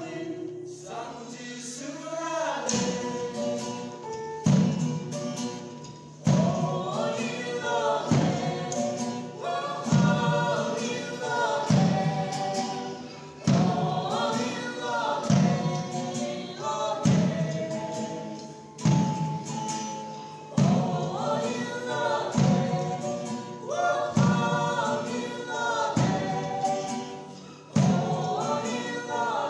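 Live Yimchunger (Naga) fusion song: a woman singing lead over guitars, with a strong beat about every two seconds.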